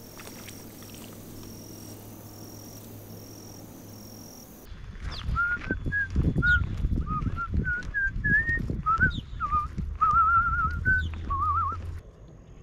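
A person whistling a tune of short gliding and trilled notes while walking, over low thumps of footsteps. Before that, for the first four seconds or so, insects chirr in a high, steady, pulsing tone.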